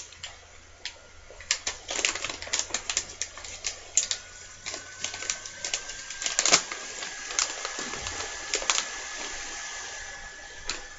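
Snack packaging being handled and opened: irregular sharp crinkles and crackles, densest in the middle of the stretch.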